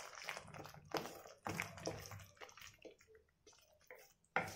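Wooden spatula stirring and scraping thick tomato-onion masala paste in a steel kadai: faint wet squelching with a few short knocks, the loudest near the end.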